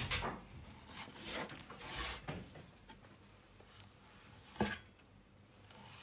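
A large kitchen knife slicing roe deer meat into steaks: several short scraping strokes as the blade draws through the meat, and one sharp knock of the blade on the cutting board a little after halfway.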